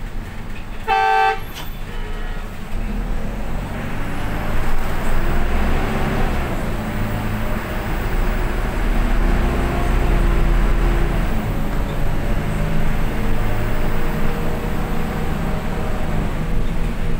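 A vehicle horn gives one short toot about a second in. It is followed by the steady running noise of a moving vehicle, engine hum and road noise, which grows louder after a few seconds.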